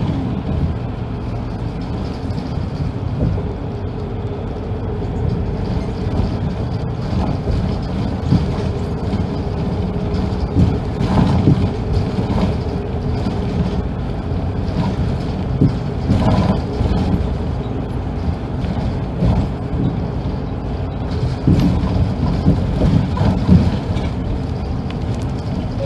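Cabin sound of a moving Kanto Railway route bus: steady engine and road rumble with a faint steady whine through the first half, and occasional bumps and rattles from the body.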